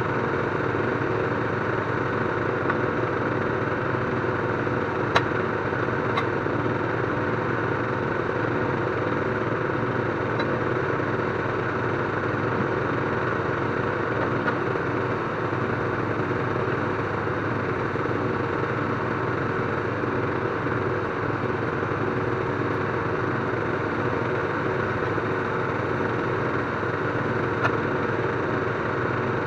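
An engine idling steadily, with a couple of sharp clicks, one about five seconds in and one near the end.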